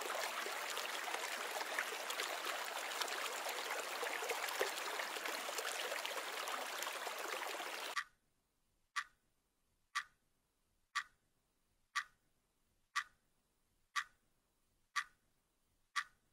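Steady rush of flowing river water that cuts off suddenly about eight seconds in, followed by a Casio Edifice quartz wristwatch ticking, one crisp tick about every second.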